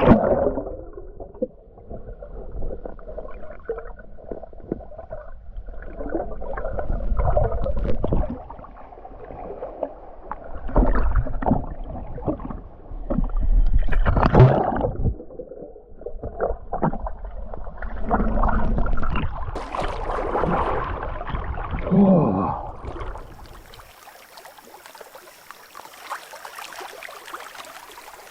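Muffled sloshing and gurgling of lake water around a person moving in it, in uneven surges. About 24 seconds in it gives way abruptly to a quieter steady hiss.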